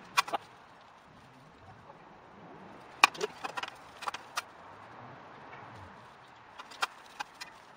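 Sharp metallic clicks and clinks of hand tools and parts against a front wheel hub and brake disc being fitted onto the spindle. They come in three groups: a few at the start, a cluster about three to four and a half seconds in, and a few more near the end.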